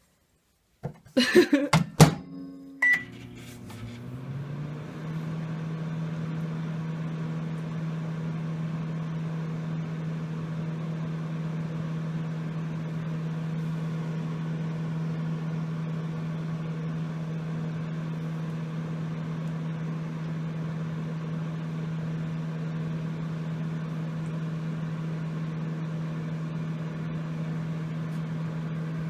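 Microwave oven being shut and started: a few clicks and a short keypad beep, then the oven running with a steady low hum that settles in after a second or two.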